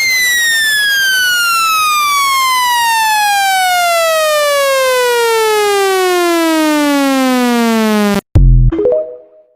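Speaker-cleaner tone: an electronic tone with many overtones sliding steadily down in pitch for about eight seconds, then cutting off sharply. A short, very loud low buzz and a few brief tones follow and fade out.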